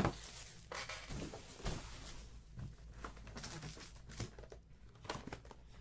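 Faint rustling and light taps and clicks of trading-card boxes and packs being handled and opened.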